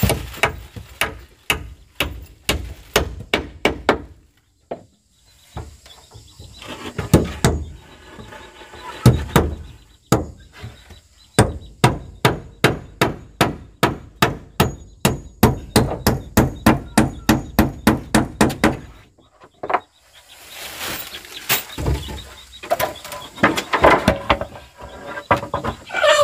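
Hammer driving nails into wooden wall boards: runs of sharp blows broken by short pauses, the longest a steady series of about four strikes a second through the middle.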